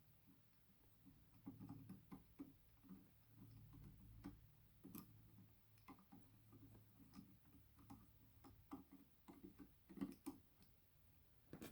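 Near silence with faint, irregular small clicks and taps of hands handling parts, a slightly sharper tap about five seconds in and a little cluster near ten seconds, over a low steady hum.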